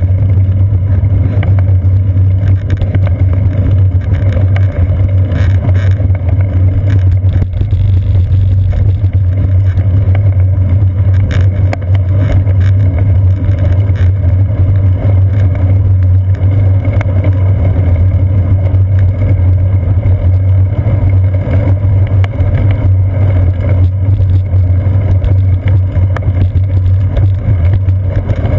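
Loud, steady low rumble of wind buffeting and road vibration, picked up by a seat-post-mounted GoPro Hero 2 in its housing on a bicycle riding along a concrete sidewalk.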